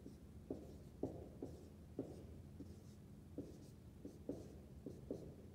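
Dry-erase marker writing numbers on a whiteboard: a string of short, faint strokes and taps.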